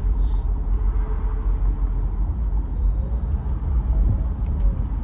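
Car being driven in city traffic: a steady low rumble of engine and road noise from inside the car, with a short hiss just after the start.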